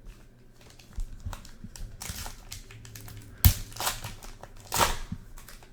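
Crinkling and rustling of a foil trading-card pack wrapper and cards being handled, in irregular bursts, with a sharp click about three and a half seconds in.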